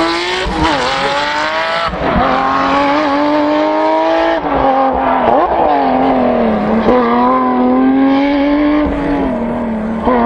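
Porsche 911 GT3 rally car's flat-six engine running hard at high revs, its pitch dipping briefly and climbing back several times as the car is driven through the bends.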